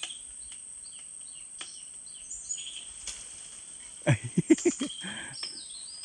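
Scattered bird chirps over a steady high insect drone. About four seconds in comes a short, loud run of rapid pulses lasting about a second.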